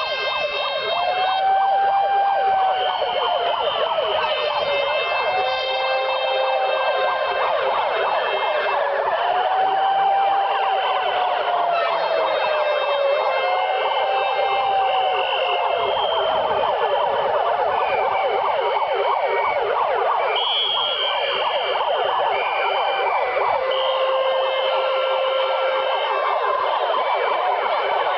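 Several handheld megaphones sounding their sirens at once: a wail rising and falling about every two seconds over steady electronic tones. The wailing stops about halfway through, leaving the steady tones.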